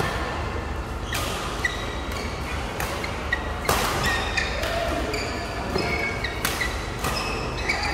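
Badminton doubles rally: several sharp racket strikes on the shuttlecock, each echoing briefly in the hall, among short high squeaks of court shoes on the mat.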